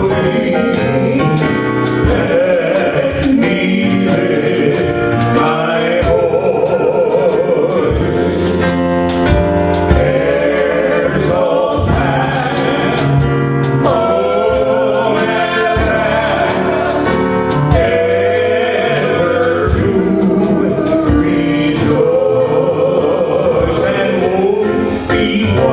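Gospel hymn: voices singing with vibrato over instrumental accompaniment with a steady beat.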